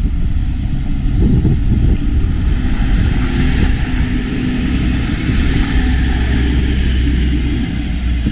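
Diesel train running close by: a loud, low engine drone with a steady hum over it, and a rushing noise that swells about three seconds in.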